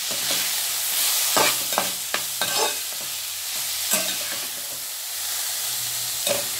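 Steel spatula stirring and scraping softened cabbage in a metal kadai, clicking against the pan several times over a steady sizzle of frying.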